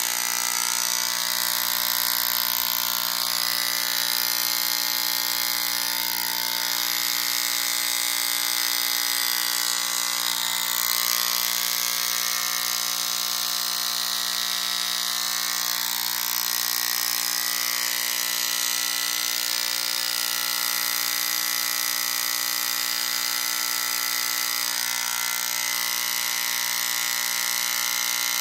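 Corded handheld electric vibration massager running steadily, pressed against the side of the head, its motor giving a continuous even buzzing hum.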